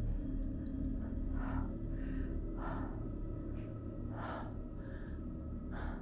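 A person breathing heavily and nervously, one breath about every second and a half, over a low, dark ambient music drone.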